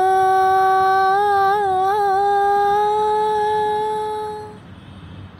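A solo singer holding one long sung 'aa' note, wavering in pitch a few times as an ornament, then fading out about four and a half seconds in.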